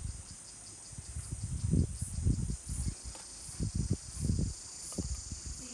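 Steady, high-pitched shrilling of insects with a faint regular pulse. Several short, low, muffled bumps on the microphone come and go in the middle and are louder than the insects.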